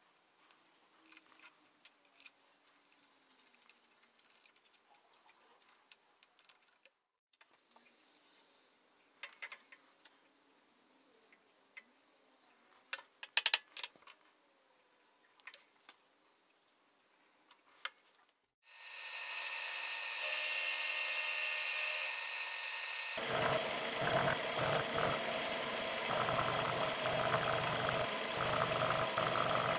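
Scattered light metal clicks and knocks as the steel plate and clamps are handled on the mill table. About 18 seconds in, the milling machine's spindle motor starts and runs with a steady whine. A few seconds later the end mill begins cutting the steel motor-mount plate on a rotary table, a continuous rough, uneven cutting noise.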